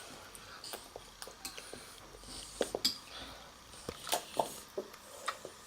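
Utensils clicking and clinking against a bowl of ramen while eating: a string of short, irregular clicks, loudest around the middle and near the end.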